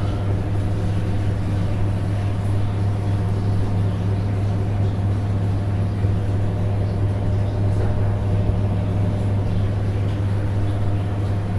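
Samsung Ecobubble washing machine in its spin cycle, the drum turning at speed with a loud, steady motor hum and whir that does not change.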